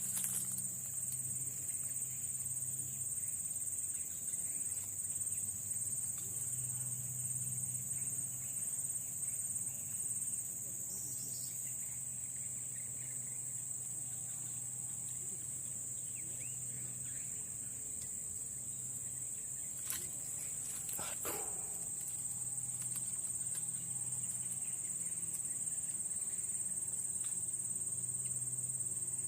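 Steady high-pitched drone of insects calling without a break, with two sharp clicks about two-thirds of the way through.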